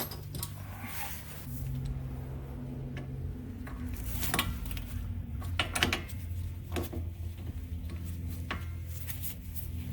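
Hand tools clinking and knocking on metal as a socket and wrench work the 21 mm nut on a rear strut's lower through bolt to break it loose, with a few sharp metallic clicks in the middle and a steady low hum underneath.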